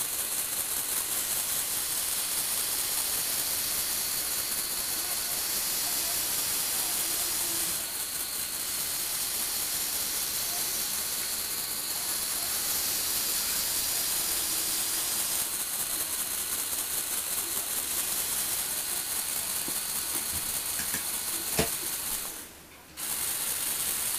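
Lego Technic electric motors whirring steadily through plastic gears as they turn and tilt the platform. A sharp click comes just before the running drops out briefly near the end, and then it starts again.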